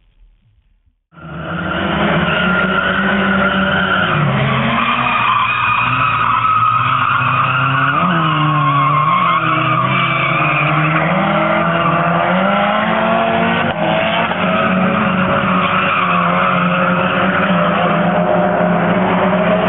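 Two Nissan 240SX drift cars in a tandem drift: engines revving up and down over continuous tire squeal. The sound starts suddenly about a second in.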